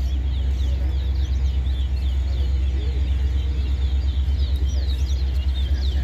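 Caged songbirds singing in a song contest: a fast string of short, high chirping notes, over a steady low rumble.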